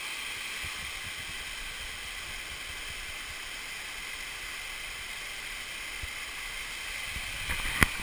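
Steady rushing of a waterfall pouring over rocks. A few knocks near the end.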